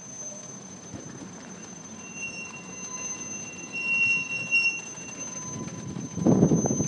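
Wheels of a switching freight train squealing against the rails: a thin, high squeal that swells about two seconds in, peaks around four seconds and fades. It runs over a steady rumble of the moving train. Near the end there is a loud rush of low noise from wind on the microphone.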